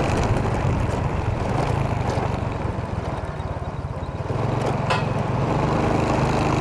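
Motorcycle engine running on the move under a steady rushing road noise. The engine note dips about three seconds in, picks up again, and turns steadier near the end. There is one brief sharp sound about five seconds in.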